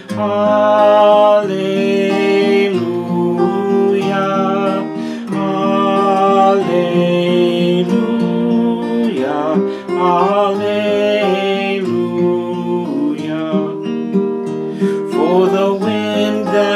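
A man singing a slow song while strumming an acoustic guitar.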